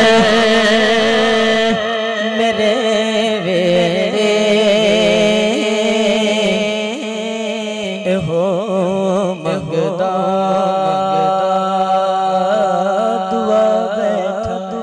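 A man singing a naat unaccompanied by instruments into a microphone, drawing out long wavering melismatic notes over a steady low vocal drone.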